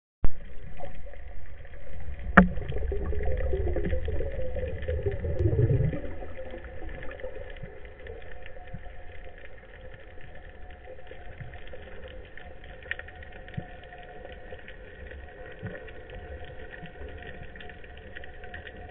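Underwater sound picked up by a camera housing mounted on a speargun: a loud low rumble of water rushing past as the diver moves, with one sharp click about two seconds in. After about six seconds it drops to a much quieter steady underwater hiss with scattered faint crackling ticks.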